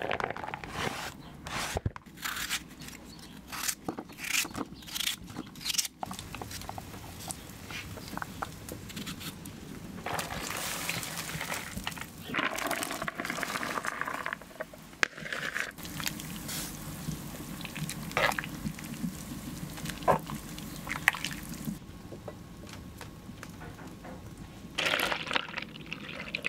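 Kitchen sounds in turn: a run of sharp taps at first, then shredded beetroot tipped from a bowl into a pot of broth with a wet splash, and near the end milk poured in a stream into a plastic bowl.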